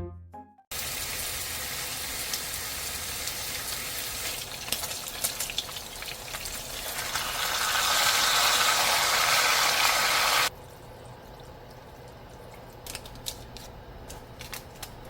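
Food sizzling in a hot pan, getting louder before it cuts off suddenly about ten seconds in. Afterwards there are a few light clicks of utensils.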